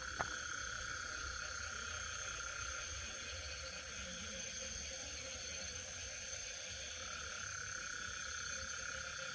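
Night chorus of insects: several steady high-pitched trills at different pitches sounding together, one of them growing louder about seven seconds in.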